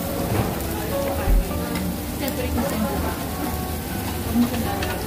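Food sizzling on a tabletop grill, with light clicks of metal tongs turning it. A dull low thump about a second in.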